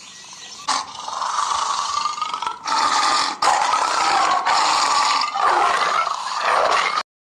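A harsh, rasping sound effect in several long stretches that cuts off suddenly near the end.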